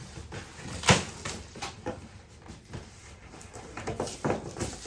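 Cardboard shipping box being handled and opened by hand: a sharp knock about a second in, then scattered taps, scrapes and clicks.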